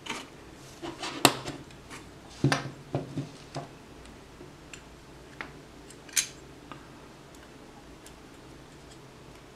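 Aluminium GoPro cage and camera parts being handled: scattered sharp clicks and taps of metal and plastic, the sharpest about a second in and another about six seconds in.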